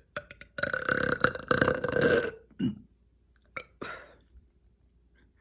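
A woman's long, loud burp lasting nearly two seconds, held at a steady pitch, followed by a few short, quieter sounds.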